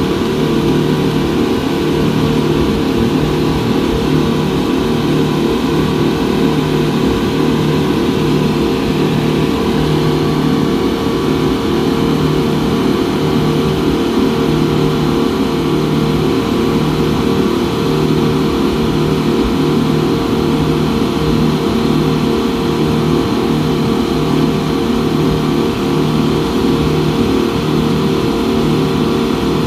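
Twin 250 hp Yamaha outboard engines on a wooden speedboat running steadily at speed: a loud, constant drone with a slow, even throb about once a second.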